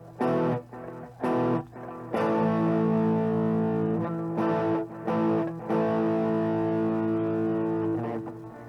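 Epiphone Les Paul Standard electric guitar on its bridge pickup, played through a Flamma FC07 overdrive at full gain and a Flamma FC21 analog compressor set low, into a small JOYO MA-10B amp. Two short distorted chord stabs come first, then held, ringing chords that sustain for several seconds with brief breaks between them.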